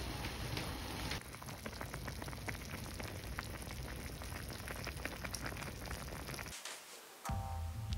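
Motsunabe broth simmering in its pot: a dense crackle of small bubbles popping over a low rumble. It breaks off briefly near the end, and music starts.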